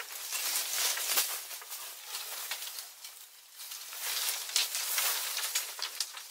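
Dry leaves and branches rustling and crackling as they are handled, with many small sharp snaps and clicks throughout.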